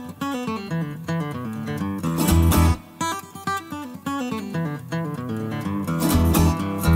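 Background music: acoustic guitar playing runs of plucked notes.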